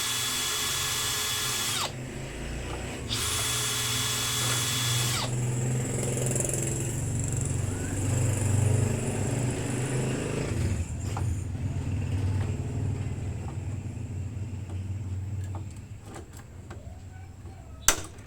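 Power drill run in two bursts of about two seconds each, a steady high whir, followed by a lower, uneven whirring and rumbling for several seconds, then one sharp click near the end.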